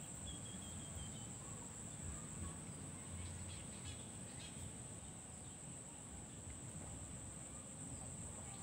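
Steady high-pitched insect drone, with a few faint bird chirps about a second in, over a low outdoor rumble.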